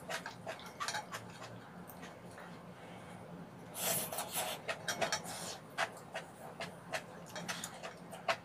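Chopsticks and a metal spoon clicking against a pan of ramen noodles. About four seconds in there is a loud slurp of noodles being sucked in, followed by more scattered small clicks.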